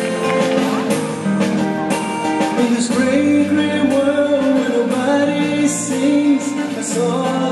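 Viennese waltz dance music playing, with a singing voice over the band.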